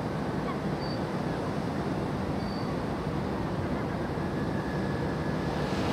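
A ship's engines and machinery running as a steady low rumble, heard from on board, with two faint short high chirps about a second and two and a half seconds in.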